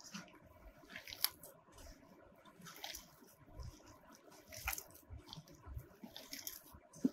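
A hand kneading a soft mash of ground chicken and chana dal with raw egg in a steel bowl: faint, irregular wet squelching strokes.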